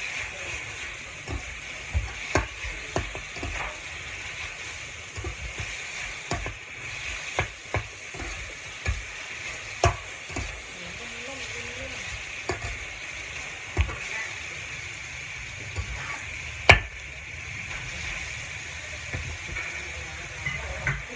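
Pork and garlic sizzling in a wok while a metal spatula stirs and scrapes them, with irregular clinks of the spatula against the pan over a steady frying hiss. The sharpest clink comes about three-quarters of the way through.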